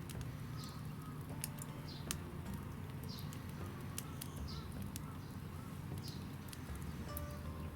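A bird repeating a short high chirp about once a second, with a few sharp crackles from the wood fire over a steady low hum.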